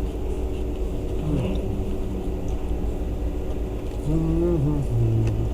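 Steady low rumble of a car idling, heard from inside the cabin. Near the end it is overlaid by a short hummed voice sound, as of someone going "mmm" while eating.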